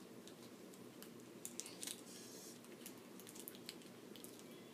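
Faint crinkling and clicking of adhesive tape being pulled and pressed over the valve of an inflatable vinyl punching toy, with a short rasp about two seconds in.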